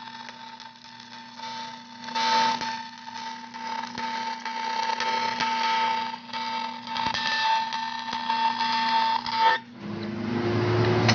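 Stick (shielded metal arc) welding of aluminum plate with a flux-coated aluminum rod on the capping pass. The arc crackles and sizzles steadily with a constant high whine, then cuts off abruptly near the end, followed by a duller, lower noise.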